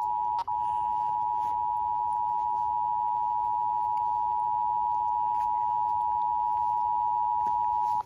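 Emergency Alert System two-tone attention signal (853 Hz and 960 Hz sounding together), a steady, loud dual tone held for about eight seconds with a brief dropout about half a second in, signalling a test of the station's EAS equipment.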